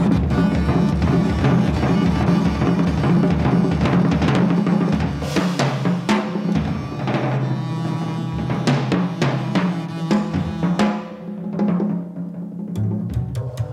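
Jazz recording of a drum kit playing busy, free-flowing strokes on drums and cymbals over long, held double bass notes; the drumming thins to scattered hits near the end.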